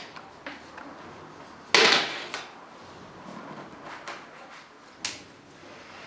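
Flat-pack cabinet boards being handled and laid down on a hard floor: a loud knock about two seconds in, followed by a few lighter knocks and a sharp one near the end.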